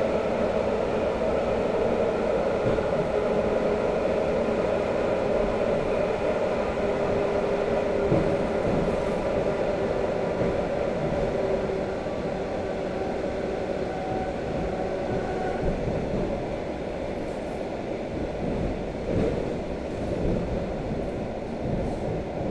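Suburban electric multiple-unit train heard from inside the passenger car while running at speed: a steady rumble with a constant hum, and a few faint knocks from the wheels on the track. It gets a little quieter about halfway through.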